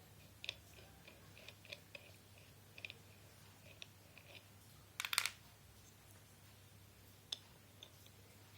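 Scattered light clicks and taps from parts of a converted water-pump bench grinder being handled, with a short rattling cluster about five seconds in and a sharp click near the end, over a faint steady low hum.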